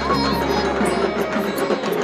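Music with many quick drum strokes over a melody.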